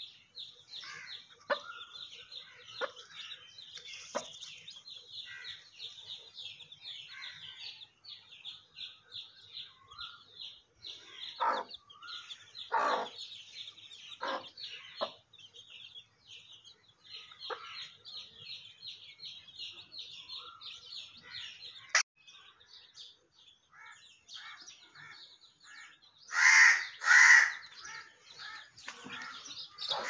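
Alexandrine parakeet calling with loud, harsh squawks near the end, over steady quick high-pitched chirping with scattered short calls.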